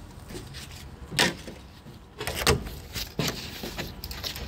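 Hand tools knocking against engine parts: about four sharp clanks a second or so apart, the loudest two about one and two and a half seconds in.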